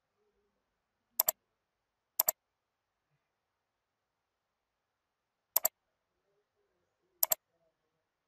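Computer mouse button clicking four times, each click a quick press-and-release pair of ticks, with near silence between.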